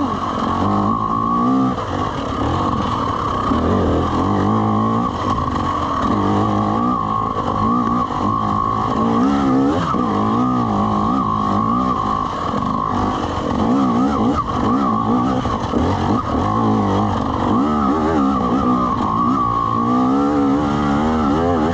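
Dirt bike engine running while riding a trail, its revs rising and falling with the throttle.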